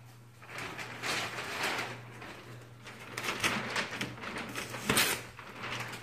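Wrapping paper rustling and tearing as it is pulled off a large present, in uneven bursts, with one sharp knock about five seconds in.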